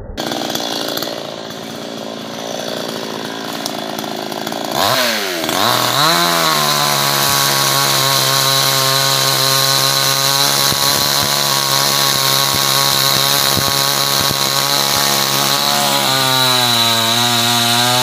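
Chainsaw cutting through a felled log. It runs quieter for the first few seconds, dips and climbs in pitch about five seconds in, then holds a steady high-revving note as it cuts. Near the end the note sags a little under load and picks up again.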